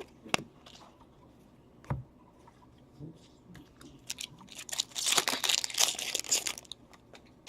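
A hockey card pack's wrapper being handled, torn and crinkled. There are a couple of sharp taps early on, then about two seconds of dense crinkling past the middle.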